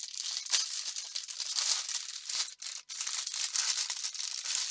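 Clear plastic bags crinkling and rustling as hands handle a bundle of small bagged diamond-painting drills, with a brief break about two and a half seconds in.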